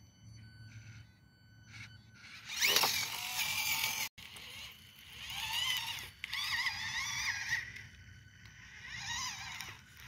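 Small brushed motor and gear drivetrain of an Axial SCX24 micro rock crawler whining as it climbs, the pitch wavering up and down with throttle and load. The whine sweeps up about two and a half seconds in, cuts off abruptly a little after four seconds, and comes back about half a second later.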